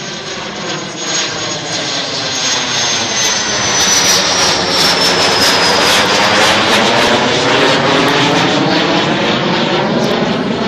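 Fouga Magister's twin Turbomeca Marboré turbojets as the jet passes overhead: a steady jet roar that builds over the first few seconds. A high turbine whine in it falls in pitch as the aircraft goes by.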